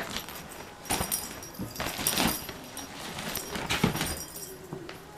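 Kitten scrambling in a cat tunnel: bursts of rustling and scuffing about a second in, around two seconds, and near four seconds.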